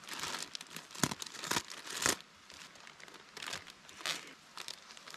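Black plastic garbage bag crinkling and tearing as it is cut open along the seam with a dull knife. The crackling is busiest for the first two seconds, then thins to scattered crinkles.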